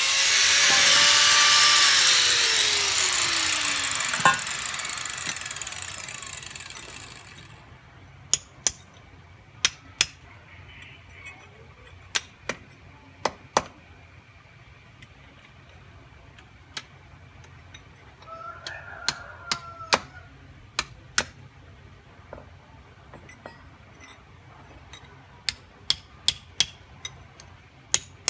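An angle grinder finishes cutting through steel pipe, then spins down in a falling whine that fades over several seconds. After that, a hammer strikes the steel pipe pieces in sharp, separate taps at an uneven pace.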